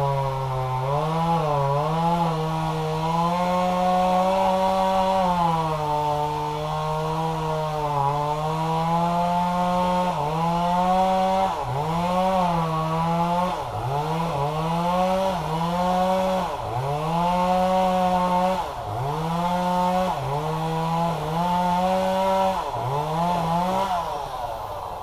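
Chainsaw running at high revs through wood. The engine note sags and recovers again and again as the chain bites, every second or two in the second half. It drops away just before the end as the saw is throttled back.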